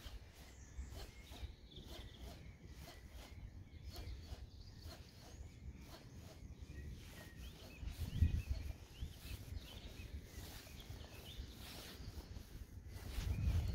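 Baitcasting reel being cranked while a jerkbait is worked, giving light, quick ticks, with birds chirping faintly. A low rumble swells briefly about eight seconds in and builds again near the end.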